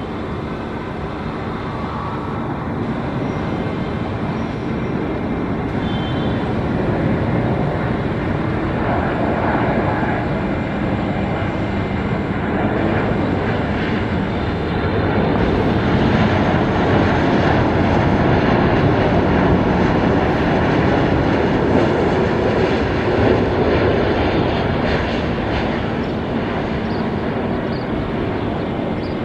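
Jet engine noise of a Boeing 787-9 Dreamliner on landing approach: a steady rushing noise that grows louder over the first half and then holds.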